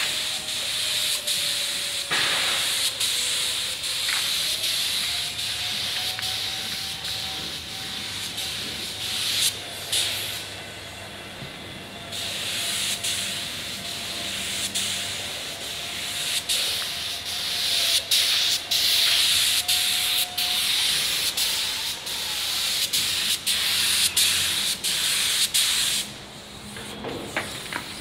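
Compressed-air spray gun with a suction-feed cup hissing as it sprays paint onto a fibreglass boat hull. The hiss runs in long passes and stops for a second or two when the trigger is let go, once near the middle and again near the end, over a faint low hum.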